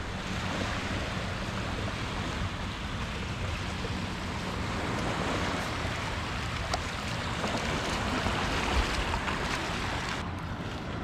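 Steady rushing noise of wind and shallow seawater as people wade in the shallows, with a couple of faint clicks in the second half.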